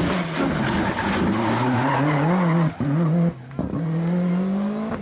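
Rally car engine revving hard, its pitch falling and rising, with tyres skidding and squealing. The engine note drops away briefly a little past halfway, then climbs again.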